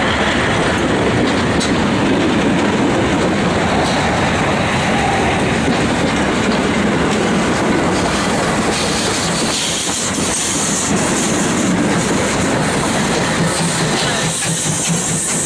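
Steam locomotives rolling slowly past at close range: steady running noise of wheels and rods on the track, with rail clatter. A high hiss joins in about two-thirds of the way through.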